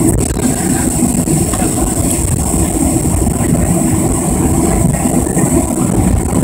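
Steady cabin noise of a Southwest Airlines Boeing 737 taxiing at low thrust: a low rumble with a steady high whine from the jet engines.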